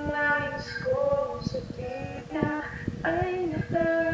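A woman's voice singing a slow melody, holding long notes between short breaks.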